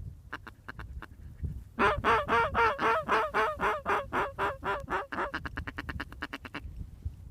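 Mallard duck call blown close by: a few short notes, then a loud series of quacks at about four a second that weaken as they go, ending in a quicker, softer chatter.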